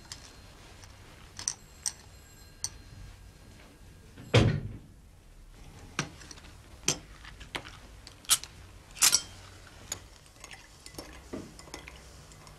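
Dialogue-free soundtrack of a 1970s television drama shot on 16mm film: a low steady hum with scattered sharp clicks and knocks, one heavy thump about four seconds in, and light china clinks of teacups and saucers near the end.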